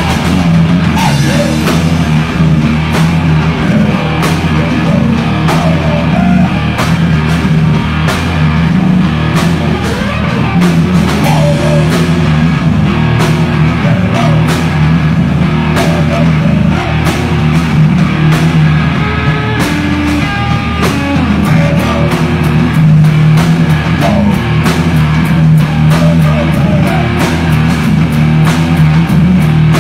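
Live rock band playing loud: electric guitars over a drum kit, with the drum and cymbal hits growing busier near the end.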